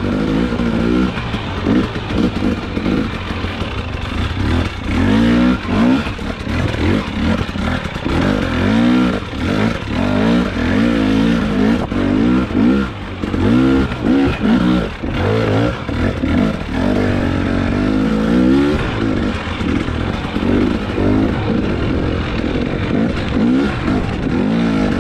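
Husqvarna enduro dirt bike engine revving up and down again and again as the throttle is worked on a technical trail, its pitch rising and falling every second or two.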